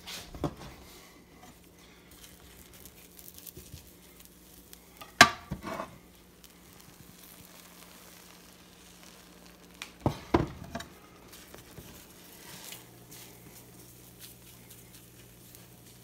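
Beaten egg with spinach cooking in a nonstick frying pan: a faint, steady sizzle over a low hum. A few sharp knocks break in, near the start, about five seconds in and again about ten seconds in.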